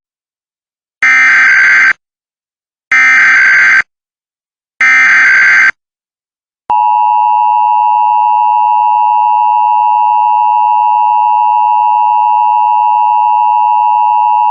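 Emergency Alert System test: three short bursts of digital SAME header data, about two seconds apart. Then the EAS two-tone attention signal (853 and 960 Hz together) holds steady for about eight seconds. The attention signal announces that the spoken alert message follows.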